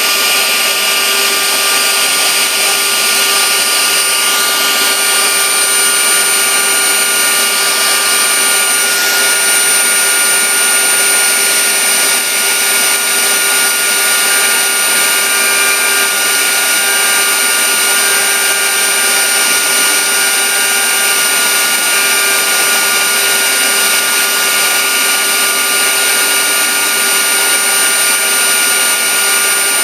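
Router spindle running at high speed with its bit cutting into a log: a steady whine of several held tones over the continuous hiss of the cut.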